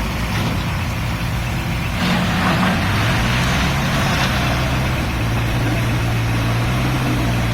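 Case N-series backhoe loader's diesel engine running steadily under work, with a broad hissing, rushing noise joining it about two seconds in.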